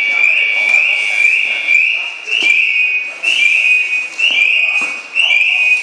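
A firefighter's breathing-apparatus (SCBA) alarm sounding continuously: a high whistling tone that steps up in pitch and back, pulsing about once a second.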